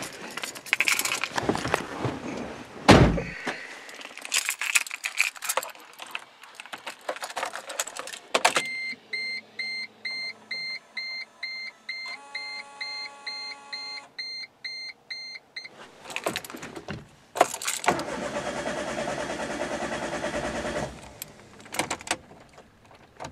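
Keys jangling and clattering, then the Geo Metro's repeating electronic warning chime. About two-thirds of the way through, the starter cranks the 1.0-litre three-cylinder engine for about three seconds without it catching, a sign that fuel has not yet been primed through to the new injector.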